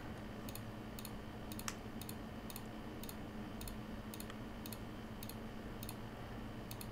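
Faint computer mouse clicks, about two a second, each Ctrl-click placing a new mesh vertex; one click a little under two seconds in is louder. A low steady electrical hum runs underneath.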